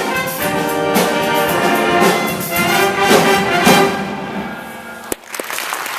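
High school jazz band playing, with saxophones and brass loudest over electric guitar, closing on a held chord that dies away about four to five seconds in. A single sharp hit follows, then applause starts near the end.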